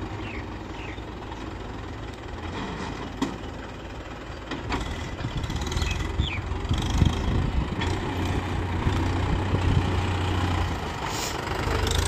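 Mahindra tractor's diesel engine pulling a trolley loaded with earth, a steady low drone that grows louder about five seconds in, with a few sharp knocks.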